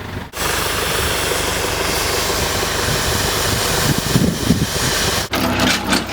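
A farm tractor's engine running steadily while it hauls a heavy old bulldozer up onto a trailer. The engine sound breaks off suddenly about five seconds in and gives way to a few short knocks.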